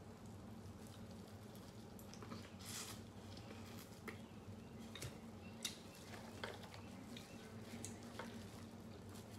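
Quiet eating sounds: biting and chewing corn on the cob, with scattered short wet mouth clicks and smacks, over a faint steady low hum.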